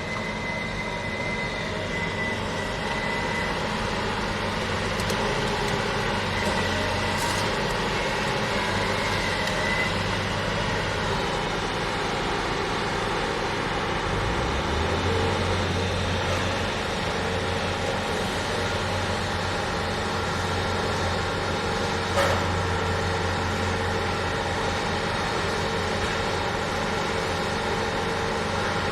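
Scoop loader's diesel engine running steadily, its note stepping up and growing stronger about halfway through as the revs rise. A faint high whine sounds over the engine early on, and a single sharp clank comes about two-thirds of the way through.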